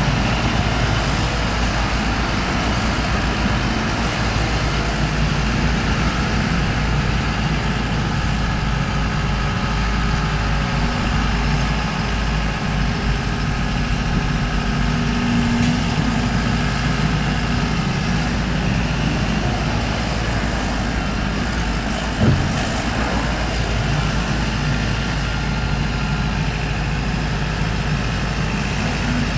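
JCB 150X HD crawler excavator's EcoMAX diesel engine running steadily as the machine digs, with a single sharp knock about three-quarters of the way through.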